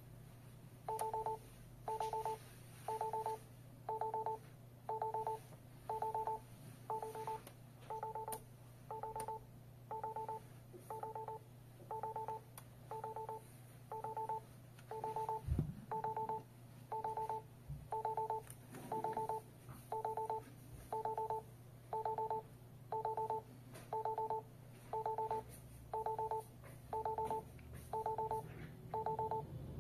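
STANIOT alarm hub's built-in buzzer beeping about once a second, each short beep made of two steady tones. It is the entry-delay countdown of the armed system, running down to the siren.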